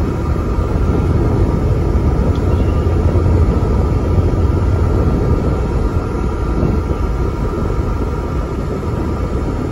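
Inside a Volvo Alexander ALX400 double-decker bus under way: its engine and drivetrain make a steady low drone with a faint high whine over it. The drone swells slightly about three seconds in and eases a little near the end.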